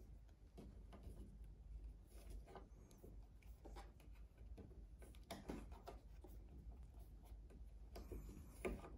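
Faint, irregular scratching and tapping on a wooden stair step from a ragdoll cat's paws and a person's finger. The cat is playing at swatting the finger. A denser, slightly louder cluster of scrapes comes near the end.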